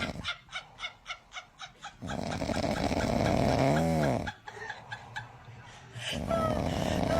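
A pet animal's sounds: a run of short rhythmic noises, about three a second, then a brief pitched call that rises and falls.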